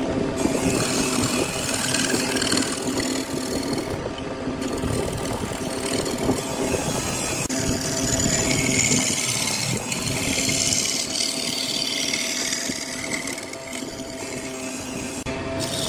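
Wood lathe running while a flat turning tool cuts the spinning wooden vase: a steady motor hum under a rough scraping hiss of shavings coming off, which breaks off briefly twice.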